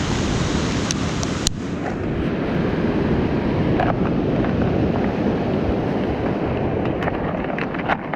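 Steady wash of surf breaking on a pebble beach, mixed with wind buffeting the microphone, with a few light clicks of handling.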